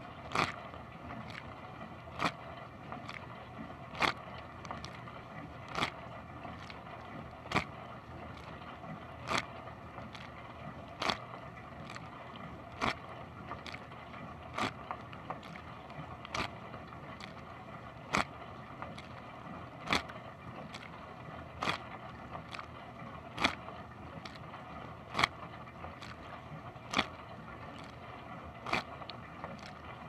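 Dishwasher running its wash cycle, heard from inside the tub: a steady rush of the circulation pump and spraying water. A sharp splash hits about every second and three quarters as the rotating spray arm's jet sweeps past, with smaller spatters in between.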